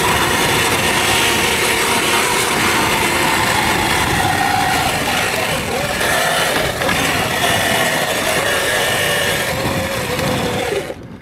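Electric dirt bike riding along a trail: a motor whine that shifts in pitch with speed over loud wind and tyre noise. The noise cuts off sharply near the end.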